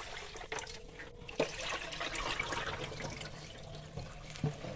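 Rinse water splashing and draining from a steel bowl of tapioca pearls into a stainless steel sink, with a few light clicks along the way.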